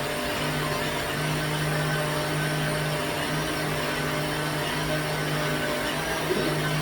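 Electric blender running steadily with an even motor hum, pureeing plantain with water for porridge.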